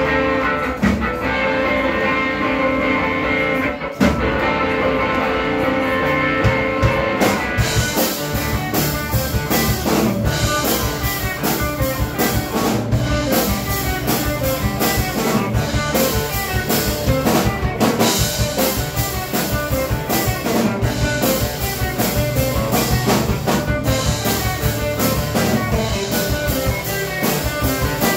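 Live band playing loud amplified rock. Electric guitar chords ring out alone at first, then a drum kit with cymbals and a bass guitar come in about seven and a half seconds in and keep a steady beat.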